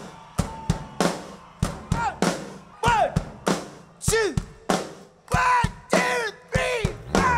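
Live rock band's drum kit playing sharp, spaced hits at about three a second, with short swooping pitched notes joining over the beat from about two seconds in.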